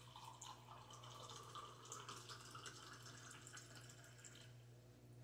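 Faint trickle of water running from a Berkey gravity water filter's spigot into a glass measuring cup; it stops about four and a half seconds in.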